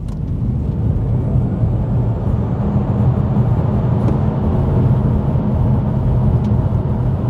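Cabin noise of a Volvo EX30 Twin Performance electric car under full-power acceleration: low road and tyre rumble that builds over the first second or two as speed climbs past 100 km/h, then holds steady.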